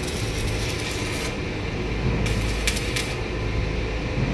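Stick (MMA) welding arc from a NEOMIG Max 180A inverter welder crackling and hissing in spurts as the electrode is struck. It runs for about a second, breaks off, sputters briefly about two seconds in, and catches again near the end: arc starts testing the welder's hot-start function. A steady low hum lies under it.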